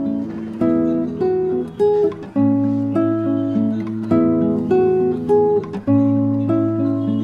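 Instrumental background music: a repeating melody of short notes over a held bass note.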